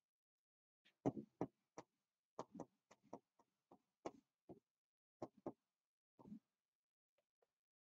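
Chalk tapping on a chalkboard while an equation is written: short, irregular taps, several a second, with quiet gaps between.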